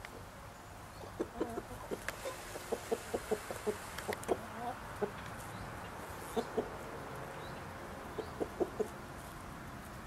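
Brahma chickens clucking: short, low clucks in quick runs of several a second, with pauses between the runs.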